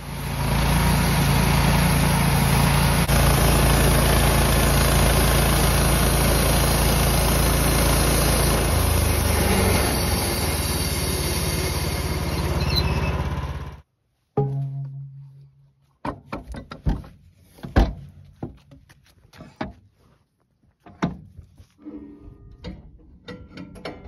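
Wood-Mizer LT15 band sawmill running loud and steady for about fourteen seconds, then cutting off suddenly. After a short gap come scattered sharp knocks and clicks.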